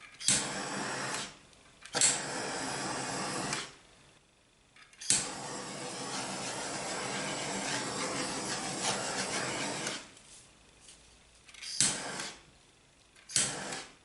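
Handheld butane torch fired in repeated bursts, each starting with an ignition click followed by the steady hiss of the flame. Two bursts of a second or so, a long one of about five seconds, then two brief ones near the end.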